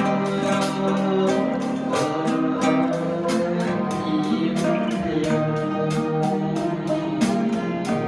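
Live traditional Thai ensemble music: string instruments play a quick, continuous run of struck or plucked ringing notes over lower held pitches.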